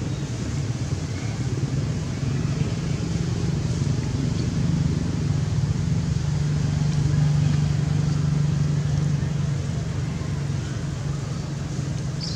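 Low engine drone of a motor vehicle, swelling to its loudest about seven seconds in and then fading again.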